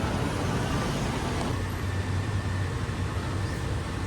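An engine running steadily with a low hum, under a steady wash of road or traffic noise.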